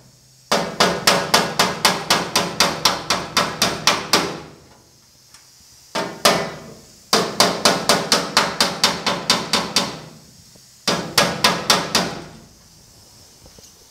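Steel body hammer tapping on the sheet metal of a 1950 Chevy truck cab around a hole, a wooden block held up behind the panel as a dolly, in three runs of quick taps about four a second. It is dent work: knocking down high spots while the wood pushes the low side up without stretching the metal.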